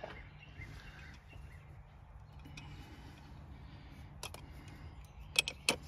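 Faint handling noise and a few sharp metal clicks near the end as a 28 mm socket on a universal joint and half-inch-drive extensions is fed down and fitted onto the fuel filter cap. A low steady hum runs underneath.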